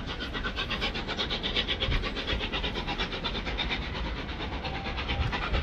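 Flying Scotsman, an LNER A3 three-cylinder steam locomotive, working away from a station with its exhaust beating in a rapid, even rhythm over a steady rumble.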